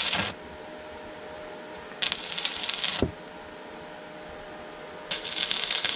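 Electric arc welding on steel: short bursts of crackling sizzle, about a second each, three times, over a steady electrical hum, with a sharp click between the second and third.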